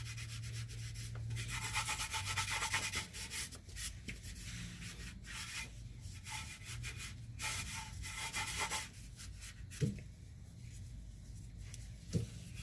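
Rag wiping degreaser off the rack near the oil filter underneath a car: irregular rubbing strokes that start and stop, over a low steady hum.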